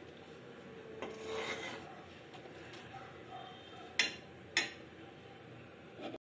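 Metal ladle stirring and scraping through thick cooked dal in a metal pan, with a longer scrape about a second in and two sharp metal clicks about half a second apart near the four-second mark.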